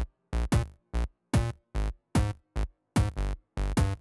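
Electronic intro music made of short, punchy stabs, about three a second, with silence between them.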